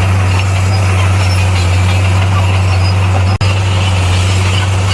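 Heavy earthmoving machine's diesel engine running steadily under load, a constant low drone, with a momentary dropout about three and a half seconds in.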